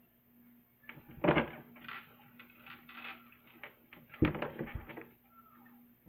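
Knocks and rustling handling sounds close to the microphone, with two louder bumps about a second in and about four seconds in, over a faint steady hum.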